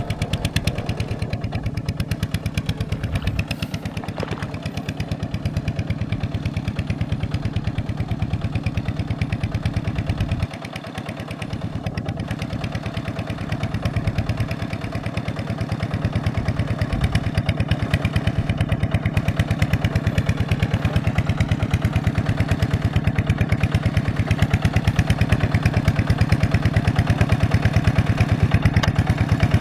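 Single-cylinder Kubota diesel engine running with a fast, even chugging. About ten seconds in it drops lower for a moment, then builds back up.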